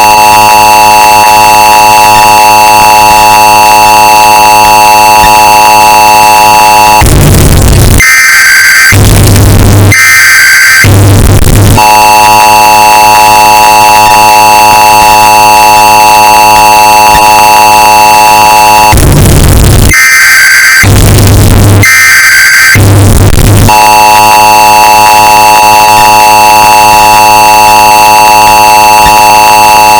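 Emergency Alert System alert, bass boosted and heavily distorted at full volume: the long steady two-tone attention signal alternates with sets of three harsh, buzzy data bursts (the SAME header), the cycle repeating about every 12 seconds.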